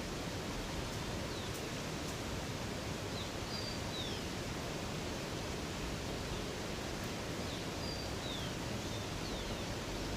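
Steady rush of flowing water, with short, high, falling bird chirps in two brief clusters, around three to four seconds in and again near the end.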